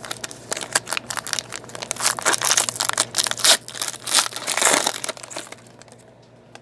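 Foil trading card pack wrapper being torn open and crumpled: a dense run of crinkling and crackling that dies away near the end.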